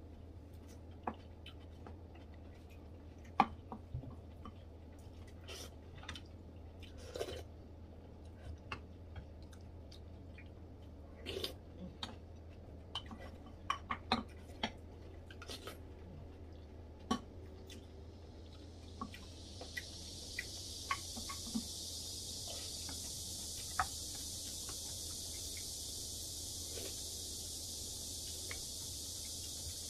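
Eating sounds: a spoon tapping and scraping in a ceramic soup bowl, with chewing, in scattered soft clicks over a low steady hum. About two-thirds of the way through a steady hiss sets in and stays.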